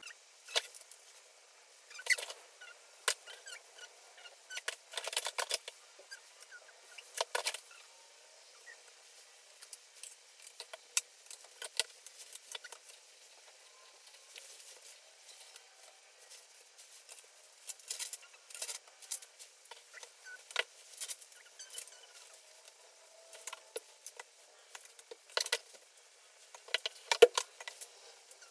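Irregular clicks, knocks and clatter of electronic drum-kit rack poles and clamps being handled and fitted together, with short spells of rustling.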